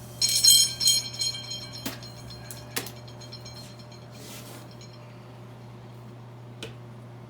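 Metallic ringing and clinking: a few bursts of high ringing in the first second and a half, then a few single clicks.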